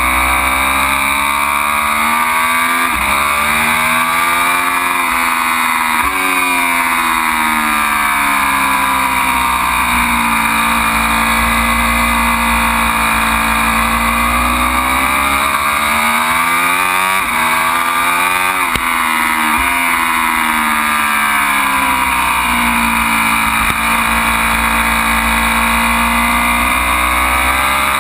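Ducati Panigale V4's V4 engine under hard track riding, revs climbing and dropping sharply through the gears. It holds a steady high note for several seconds midway, and about two-thirds through comes a quick run of short rev blips, typical of downshifting on the brakes. A heavy low rumble of wind runs underneath throughout.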